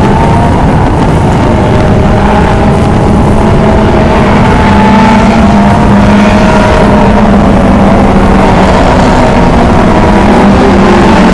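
A pack of short-track race cars running laps together: several engines droning at slightly different pitches that drift up and down, loud and steady, swelling a little about halfway through as the cars come round the turn.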